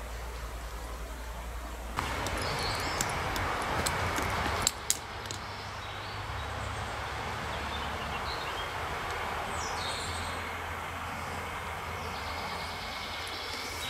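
Woodland ambience: birds calling over a steady rushing background noise, with two sharp clicks a little under five seconds in.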